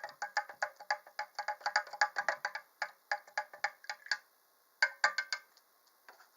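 A plastic Aqua Leash stirring water in a small plastic Sea-Monkey tank, clicking rapidly against the tank's walls, about six clicks a second. The clicking stops a little after four seconds in, comes back in a short flurry about a second later, and ends with a single click.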